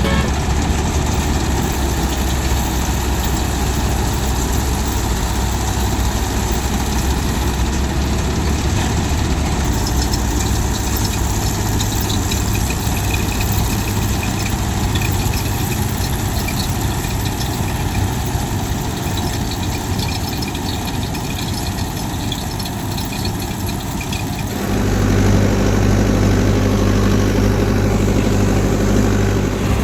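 Farm machinery engine running steadily. About 25 seconds in the sound changes abruptly to a louder, deeper engine hum.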